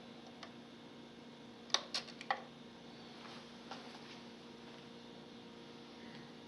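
Dual 601 turntable's mechanism giving a quick cluster of four sharp mechanical clicks about two seconds in, and a fainter click a little later, over a steady low hum.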